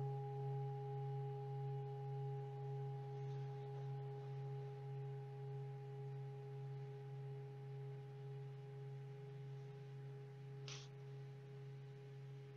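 Singing bowl ringing on in one long, slowly fading tone with a gentle waver, marking a silent meditation. A brief faint click comes about eleven seconds in.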